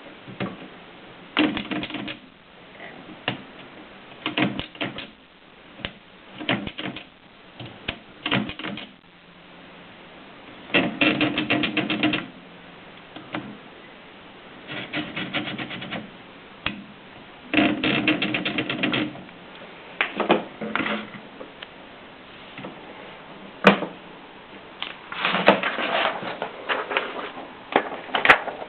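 Mercedes Superba typewriter being typed on: keys striking in quick runs of clicks, broken by short pauses and occasional single strokes.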